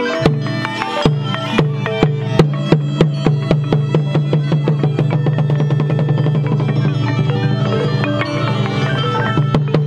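Khmer pinpeat ensemble music accompanying shadow-puppet theatre: struck mallet and drum notes over a low sustained tone, quickening to a dense run of fast, even strikes in the middle.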